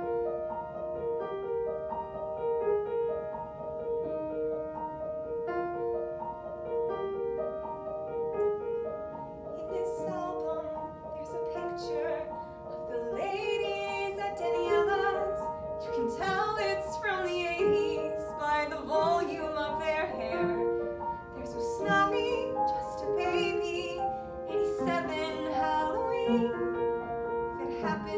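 Upright piano playing the introduction to a musical-theatre song. About ten seconds in, a woman's voice joins, singing with vibrato over the piano accompaniment.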